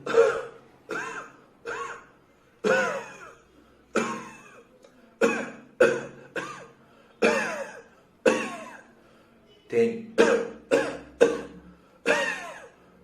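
A man deliberately imitating a dry, muffled cough: over a dozen short single coughs about a second apart, coming quicker near the end. It is a dry cough with no phlegm, the kind a doctor presents as typical of coronavirus infection with shortness of breath.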